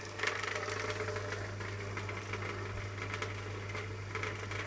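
Refrigeration vacuum pump running steadily with a low hum, evacuating the heat pump's refrigerant circuit, which has been pulled down to about 415 microns.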